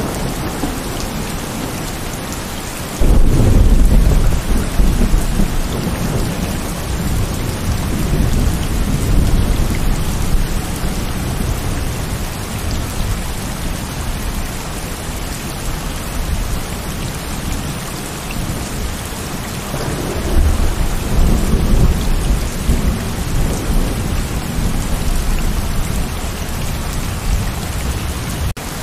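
Heavy rain pouring steadily, with thunder: a sudden loud crack and deep rumble about three seconds in that slowly dies away, and another long rumble swelling later on.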